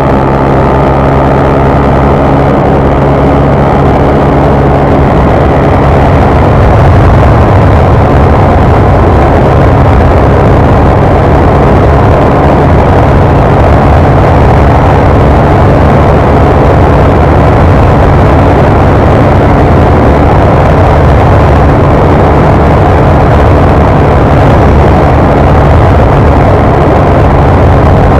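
Honda CG 150 Fan motorcycle's single-cylinder four-stroke engine running hard as the bike is ridden at speed, loud and steady. It grows a little louder about six seconds in.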